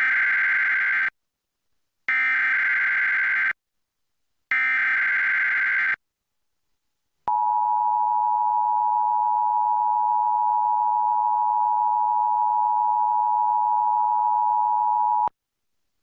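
Emergency Alert System Required Monthly Test header: three short bursts of SAME digital data tones, each about a second and a half long, with a second of silence between them. After a pause comes the steady two-tone EAS attention signal, about eight seconds long, which cuts off sharply.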